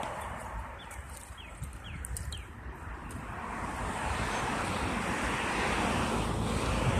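Wind buffeting the microphone with a steady low rumble, and a rising hiss of shallow water swishing as hands move through a plastic wading pool. A few short falling chirps sound in the first half.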